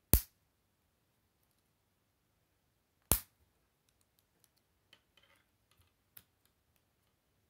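Plastic K'nex rods and connectors snapping into place: two loud sharp clicks about three seconds apart, followed by several faint clicks and light handling of the pieces.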